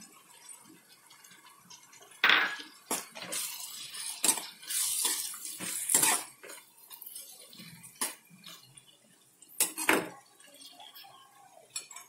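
Stainless steel slotted ladle stirring chopped tomatoes and onions in a metal kadhai, scraping and clinking against the pan in irregular knocks; the loudest come about two seconds in and again near ten seconds.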